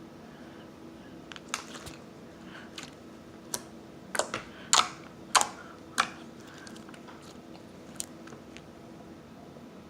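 Slime being worked by hand, with trapped air bubbles popping in a string of irregular sharp clicks, the loudest pair about five seconds in.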